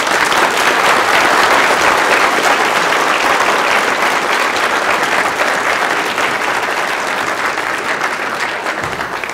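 Audience applauding, dense clapping that slowly thins out toward the end.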